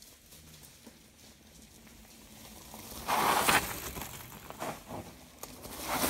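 Mountain bike tyres rolling over dry leaf litter and dirt, growing louder as the bike comes closer, with a loud rush of crackling leaves about halfway through and another as it passes close near the end.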